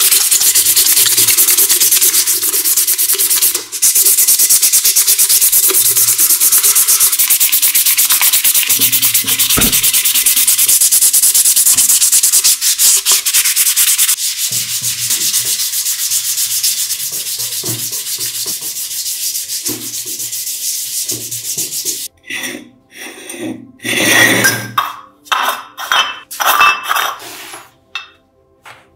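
A brass gas-lamp part rubbed and sanded by hand: a loud scratchy hiss of very rapid back-and-forth strokes, which turns quieter about fourteen seconds in. From about twenty-two seconds it breaks into separate short scrapes and knocks.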